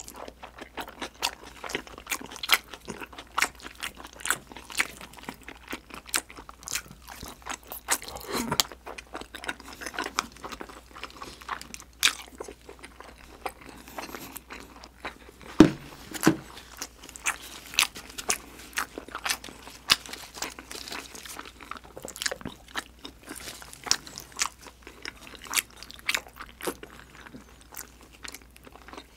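Close-miked chewing of a mouthful of grilled freshwater eel: wet, smacking mouth sounds and many sharp, irregular clicks, with one louder click about halfway through.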